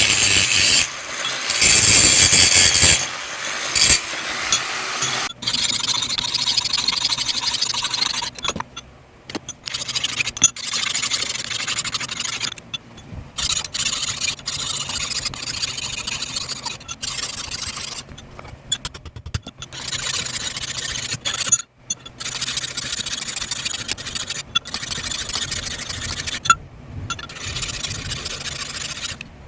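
Electric grinder running and grinding steel, most likely the axe head being shaped, with a steady motor hum. The grinding noise breaks off briefly many times as the tool leaves the metal, and is loudest in the first few seconds.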